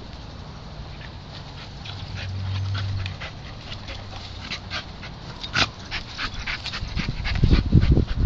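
A dog panting and nosing a brick about on dirt, with many scattered light clicks and scrapes. Loud low thumps come in near the end.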